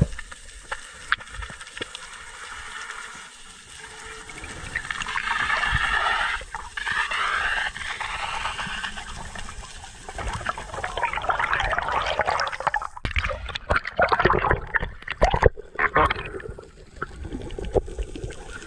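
Water gurgling and bubbling, heard underwater, uneven in level, with louder irregular sloshing and clicks in the second half.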